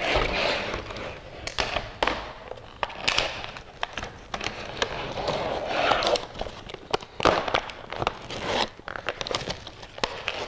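Stiff plastic clamshell blister pack crackling and crinkling as it is bent and pried apart by hand, with many sharp clicks and pops.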